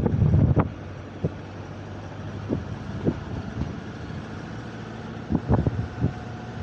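Wind buffeting the microphone in irregular gusts, strongest at the start and again about five seconds in, over the low steady rumble of a vehicle driving slowly.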